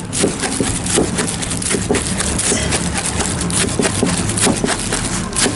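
Kitchen knife slicing a roll of gimbap into rounds on a cutting board: a run of short knocks and scrapes, roughly two a second, as the blade cuts through the rice and seaweed and meets the board. A steady background din runs underneath.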